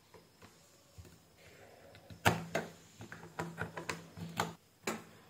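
Plastic clicks and knocks as a USB tester and cable are handled and plugged into a phone charger: a sharp click about two seconds in, then a run of smaller clicks.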